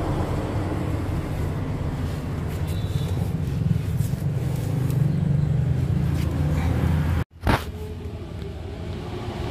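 Steady low hum of a vehicle engine running, breaking off for a moment about seven seconds in.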